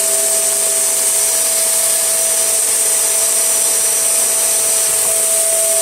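Tesco Eco Pet V.CU12P vacuum cleaner running steadily at full speed, a rush of air with a steady whine from the motor.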